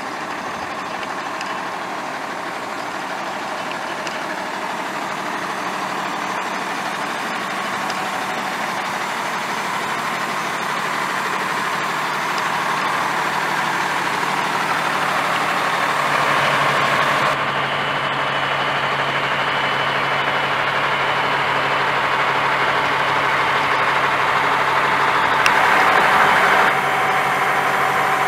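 Hino 258 turbo-diesel truck engine idling steadily, growing gradually louder.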